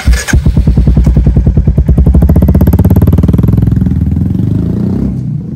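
Royal Enfield Hunter 350's single-cylinder engine thumping through a stainless-steel Roar aftermarket exhaust. It gives a loud, even run of exhaust beats that quicken through the middle, then fade away near the end as the bike moves off.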